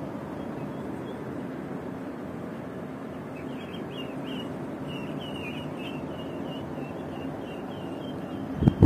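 Gree Soyal split air conditioner's indoor unit running, with a steady fan and airflow noise. A string of short, high chirps starts about three seconds in and repeats about three times a second, and a sudden loud bump comes right at the end.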